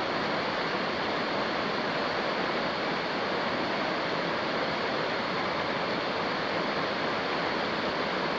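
A river rushing over rapids: a steady roar of white water.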